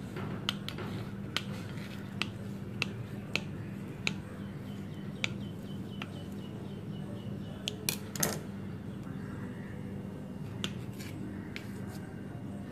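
Scissors snipping through samosa pastry sheets on a steel plate: about a dozen sharp, irregular snips, one followed by a brief thin metallic ring, over a steady low hum.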